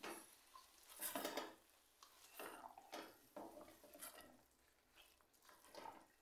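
Faint scraping and rustling of a spatula stirring and tossing spaghetti in an aluminium pot, in a string of short, irregular strokes against the pot.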